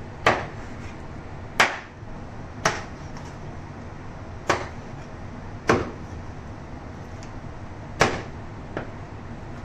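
A long, heavy kitchen knife chopping raw chicken breast into pieces on a wooden chopping board: six sharp chops at uneven intervals, then a lighter one near the end.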